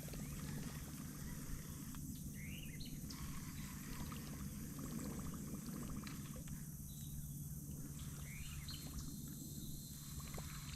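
Faint outdoor lakeside ambience: a low steady rumble with two short bird chirps, one about two and a half seconds in and another near eight seconds.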